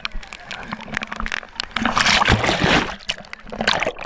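Water splashing and sloshing around a camera held at the water's surface while swimming in heavy rain, with a louder rush of splashing for about a second, two seconds in.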